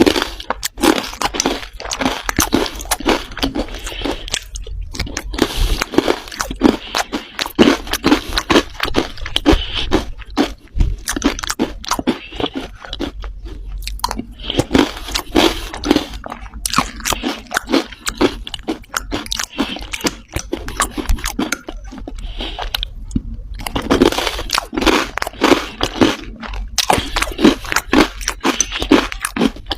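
Red clay chewed close to the microphone: crisp crunches in quick runs, broken by a few short pauses.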